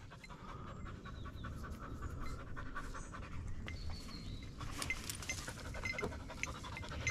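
A young hunting dog panting.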